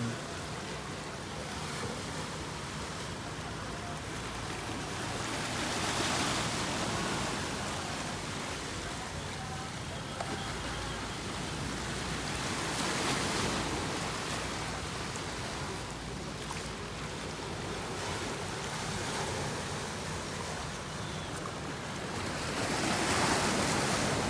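Ocean surf: waves washing onto the beach in a steady rush that swells louder every several seconds as sets break.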